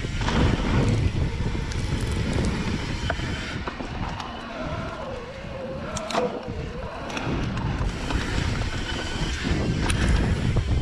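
Wind buffeting the microphone over the rumble of a Santa Cruz Heckler mountain bike's tyres rolling fast over a dirt trail, with a few sharp knocks and rattles from the bike over bumps.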